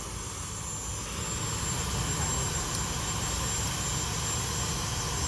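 Concrete compactor's small engine running steadily, getting a little louder about a second in.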